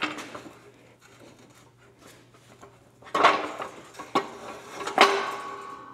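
Steel press brake attachment clanking against the frame of an H-frame shop press as it is set in place: three sharp metal clanks about a second apart, starting about three seconds in, each with a short ring.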